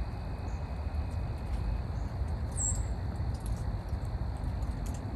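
Fire burning a mud-caked plush stuffed animal, with scattered faint crackles over a steady low rumble.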